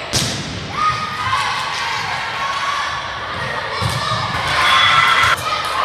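Volleyball rally in a gym: a sharp hit of the ball right at the start, then players and spectators shouting and cheering, loudest about five seconds in.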